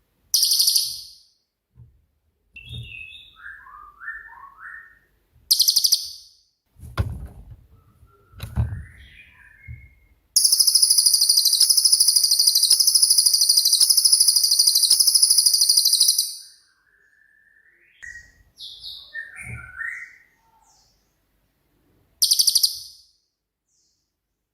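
Cililin bird singing: short bursts of very high, rapid buzzy trills and one long trill of about six seconds, with softer lower chirps in between. A couple of low thumps come in the first third.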